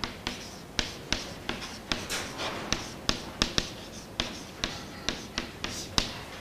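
Chalk writing on a chalkboard: an irregular run of sharp taps as the chalk strikes the board, with short scratchy strokes in between.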